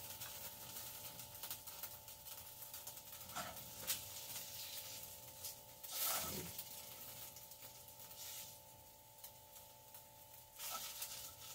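Faint frying sounds as starch-coated tofu pieces are lifted out of hot oil in a frying pan with a spatula: light sizzling and a few short scrapes, the loudest about six seconds in, over a steady electrical hum.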